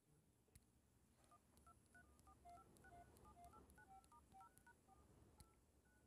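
Very faint run of telephone touch-tone (DTMF) beeps coming over an answered phone call: short two-note tones in quick succession, several a second, starting about a second in and stopping shortly before the end.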